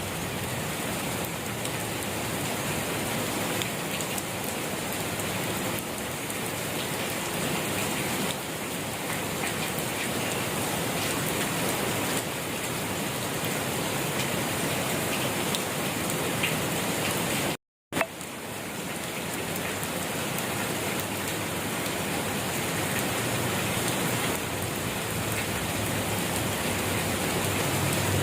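Steady rain falling, an even hiss of many drops, which cuts out to silence for a split second about two-thirds of the way through.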